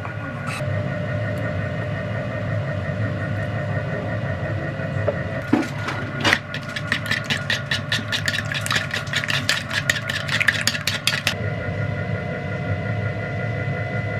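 Wire whisk beating eggs in a bowl: a quick, even run of light clicks, about six a second, from about six seconds in until about eleven seconds. Under it runs a steady machine hum.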